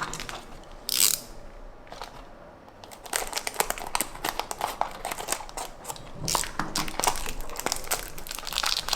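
Toy car packaging being handled and opened: crinkling and rustling, with a short sharp scrape about a second in, then dense small clicks and crackles.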